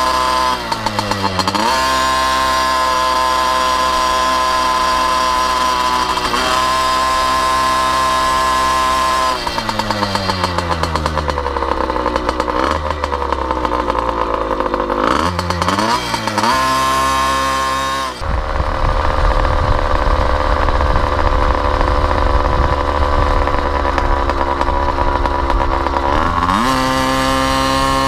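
A motorized bicycle's small engine running under way while being warmed up. Its pitch drops off and climbs back several times as the throttle is eased and opened again. From about two-thirds of the way in, a heavy low rumble joins the engine until near the end, when the pitch rises once more.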